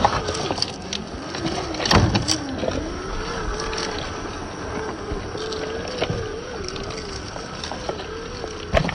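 Radio-controlled Traxxas TRX-4 crawler's electric motor and drivetrain whining, the pitch rising and falling with the throttle. Sharp knocks from the truck about two seconds in and again near the end.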